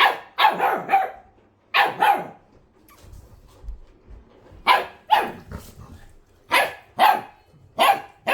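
A dog barking repeatedly in quick runs of two or three barks, with a break of about two seconds near the middle.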